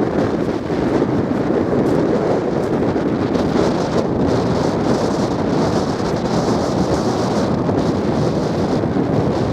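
Strong wind buffeting the microphone: a loud, steady rushing with no let-up.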